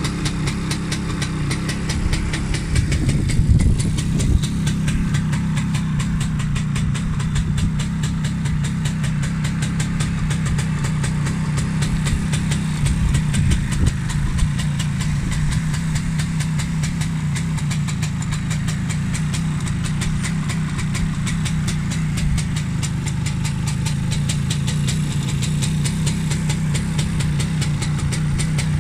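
1966 Suzuki B105P Bear Cat's single-cylinder two-stroke engine idling steadily, briefly getting louder a few seconds in and again about halfway through.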